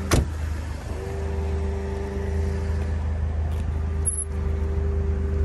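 A car door on a 1992 Saturn SL1 shuts with a single short knock. A steady low hum follows, with a faint steady tone above it starting about a second in.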